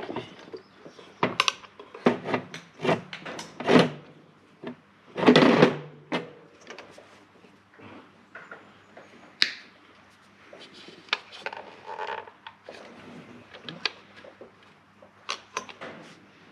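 Workshop handling noises as engine parts and tools are worked with: irregular clicks, knocks and light clatter, with one longer, louder noise about five seconds in.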